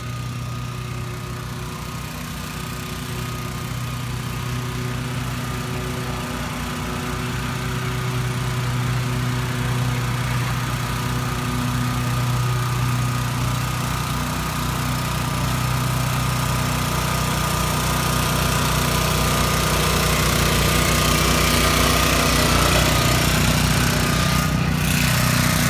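BCS two-wheel walk-behind tractor's small petrol engine running steadily while it pulls the hiller-furrower attachment through the soil, getting gradually louder as the machine comes closer.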